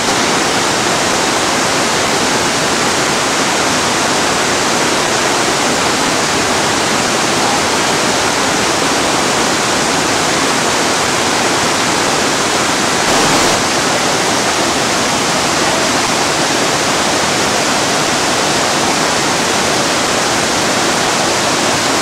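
Large waterfall pouring down a tall rock cliff: a loud, steady rush of falling water.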